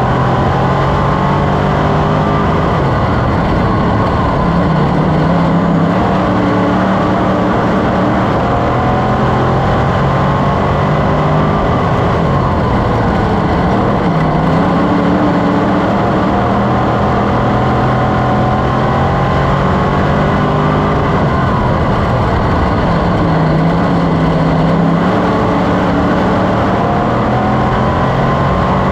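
Sportsman dirt modified race car's V8 engine heard from inside the cockpit at race speed. Its pitch falls off and climbs again about every nine to ten seconds as the driver lifts for the turns and gets back on the throttle out of them.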